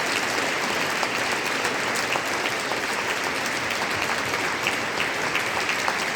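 Concert audience applauding, a dense, even clapping that holds at one level throughout.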